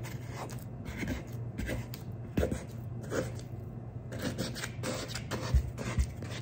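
Wet fingertips working sticky sourdough dough loose from the sides of a lightweight mixing bowl: faint scattered squelches and taps, with a few soft thumps, over a low steady hum.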